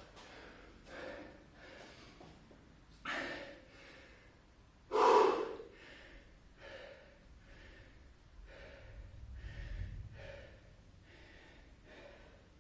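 A man breathing hard and panting right after a set of 20 burpees, in quick repeated breaths, with two louder gasping breaths about three and five seconds in.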